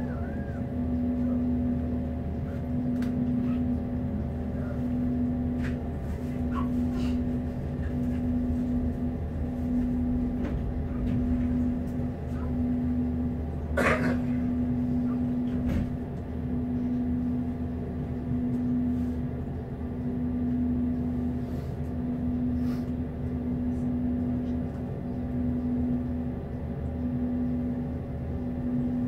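Standing tram's onboard equipment humming, with a low tone that pulses on and off about every second and a half, and a single sharp knock about halfway through.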